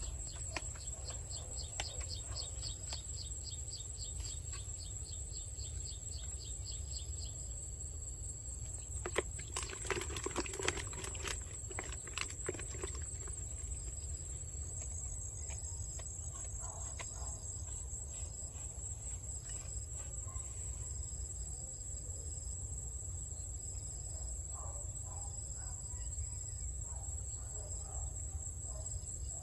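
Insects trilling steadily in a high, continuous whine. Over the first several seconds another insect chirps in a fast pulsing rhythm, and short, evenly spaced chirps come later. A few clicks and knocks fall about a third of the way in.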